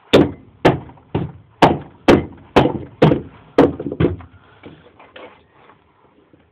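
Nine sharp blows about two a second, like a hammer striking, followed by a few lighter taps near the end.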